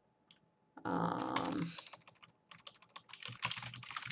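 Typing on a computer keyboard: a run of quick key clicks in the second half, with a short murmured vocal sound about a second in.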